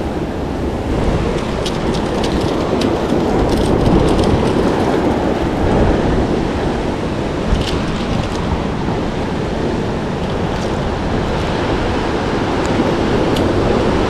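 Steady rush of ocean surf, with wind buffeting the microphone and a few faint crackling ticks.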